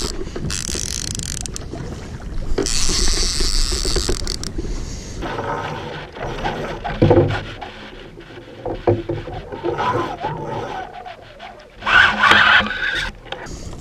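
Sea water splashing and slapping against a plastic fishing kayak rocking in chop, with scattered knocks and scrapes from the rods and gear on board. There are two spells of loud hissing splash in the first few seconds and a short loud burst near the end.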